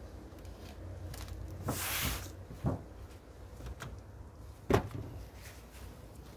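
A few knocks and bumps of wooden beehive parts being handled, the loudest about three quarters of the way through, with a short hiss about two seconds in.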